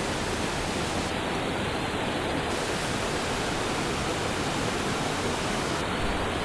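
Rushing water of a rocky mountain stream pouring over small cascades between boulders, a steady even rush.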